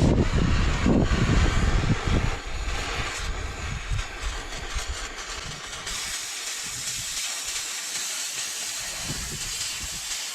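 Cutting torch hissing steadily as it burns through steel plate. A low rumble fills the first two seconds, and the hiss turns brighter from about six seconds in.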